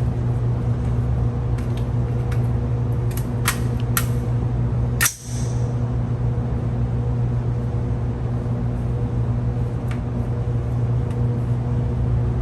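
Steady low mechanical hum of an indoor shooting range, with a few light clicks and one sharp, loud crack about five seconds in.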